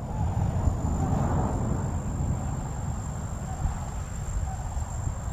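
An insect singing one steady high-pitched note, over the low rumble of wind on the microphone.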